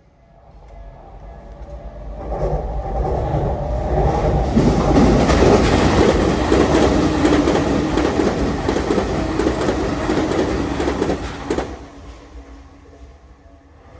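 A Tokyu Meguro Line electric commuter train passing at high speed. It builds over about four seconds, is loudest for about seven seconds while it goes by, then fades away near the end.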